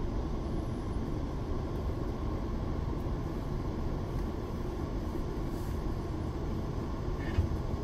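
Steady running rumble of a GO Transit bilevel passenger train, heard from inside the coach as it travels along the track. There is a single short knock near the end.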